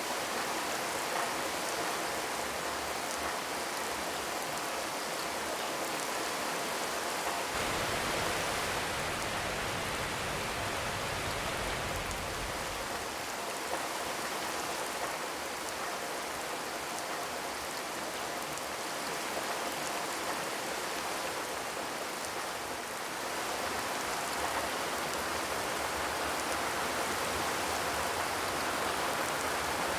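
Steady rain pattering on a zinc roof, a dense, even hiss of drops on corrugated metal without thunder; a low rumble joins in from about 7 to 13 seconds in.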